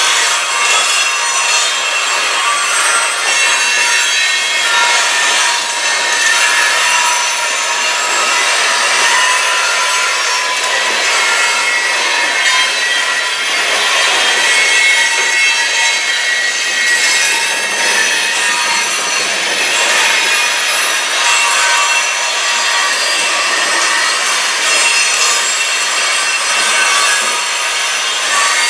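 CN freight train rolling past, its steel wheels squealing and grinding against the rails in a steady, high-pitched metallic screech made of many shrill tones.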